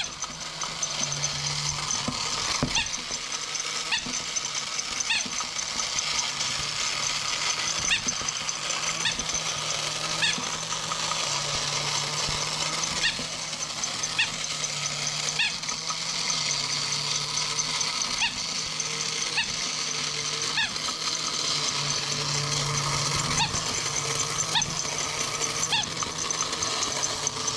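Battery-operated Trumpet Monkey toy running: its small electric motor and gears whirr steadily with regular mechanical clicks a little over a second apart, and a low buzzing tone comes and goes every few seconds.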